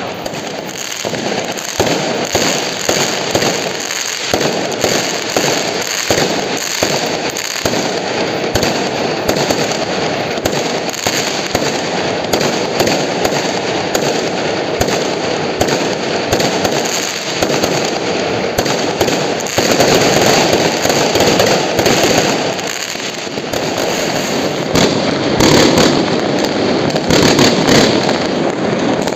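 Dense, unbroken barrage of aerial fireworks and firecrackers going off all around, countless overlapping bangs and crackles with no pause, swelling a little about two-thirds through and again near the end.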